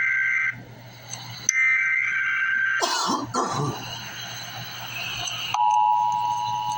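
Emergency Alert System data header: a harsh two-tone digital warble that ends just after the start and sounds again for about a second starting around 1.5 s in. A short noisy sound falling in pitch follows around 3 s. From about two-thirds of the way in, the EAS attention signal begins: a steady, piercing two-tone beep.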